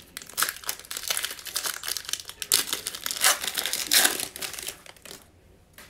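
A trading card pack's wrapper being torn open and crinkled as the cards are pulled out, a dense crackling that stops about five seconds in.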